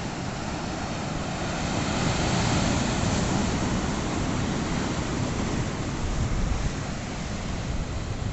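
Sea waves breaking and washing over rocks, a steady rushing surf that swells a little about two seconds in, with wind buffeting the microphone.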